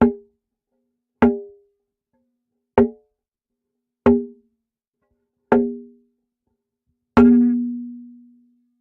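A metal bullet catcher struck repeatedly with a finger: six separate taps about one to one and a half seconds apart, each leaving a short pitched ring that dies away, the last one ringing longest.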